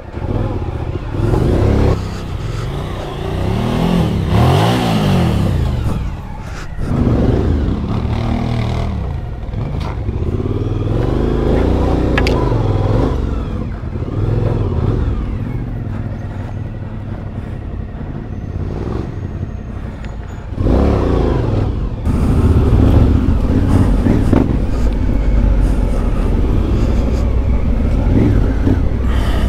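Suzuki V-Strom adventure motorcycle's V-twin engine heard from the rider's seat, revving up and down again and again as the throttle is worked. About two-thirds of the way through it gets louder and steadier.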